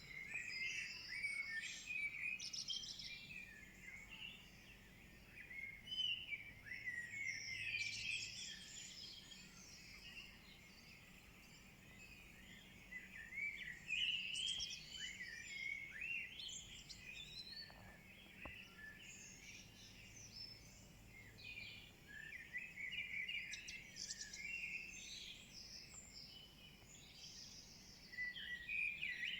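Dawn chorus: many songbirds singing at once, overlapping chirps, trills and whistles with no pause.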